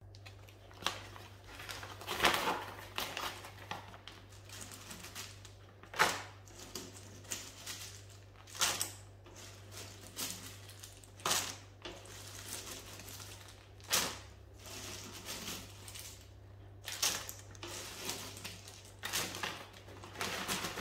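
Dried banana chips being dropped by hand into plastic vacuum-seal bags: light dry crackles and bag crinkling, with a sharper rattle every two to three seconds.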